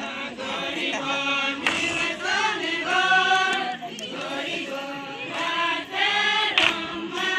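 A group of voices singing a chant-like garba song together, in short repeated phrases of held notes with slight bends between them.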